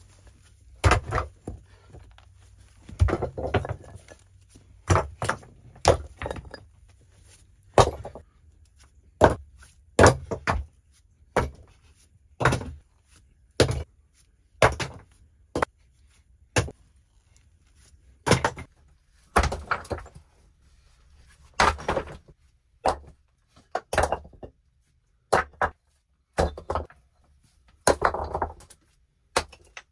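A series of knocks and thuds, roughly one a second at an uneven pace, some followed by a short scraping rustle.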